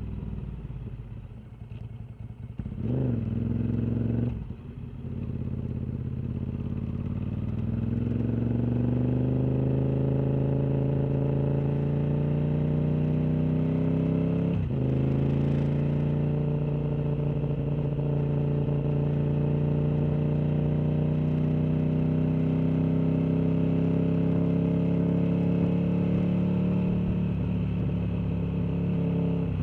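Sport motorcycle engine heard onboard: it winds down at first with a short blip of revs a few seconds in, then pulls hard with steadily rising pitch, a gear change about halfway, and a long slower rise in the next gear before easing off near the end.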